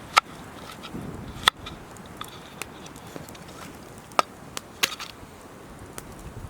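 Campfire crackling, with about half a dozen sharp, scattered pops over a steady hiss.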